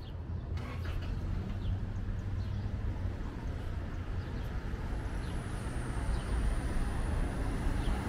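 Street traffic ambience: a steady low rumble of cars on a town avenue, with a few faint short high chirps and a thin high whine that starts about halfway through.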